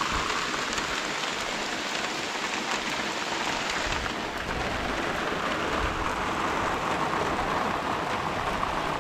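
Heavy rain pouring down steadily in a sudden downpour.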